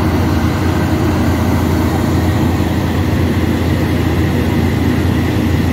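Heavy diesel truck engine running steadily: a loud, even low drone.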